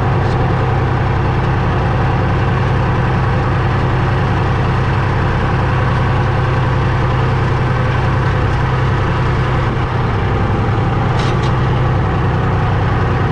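Valmet 359D tractor's diesel engine running steadily at a constant speed, heard from inside the cab, while it pulls a seed drill across the field.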